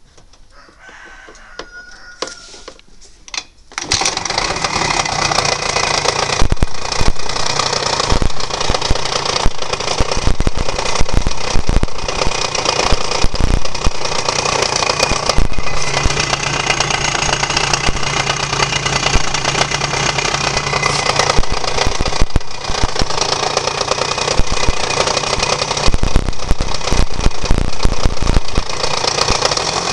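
Honda Dio AF27 scooter's 50cc two-stroke engine starting about four seconds in and then running, with frequent irregular sharp knocks: the engine is knocking.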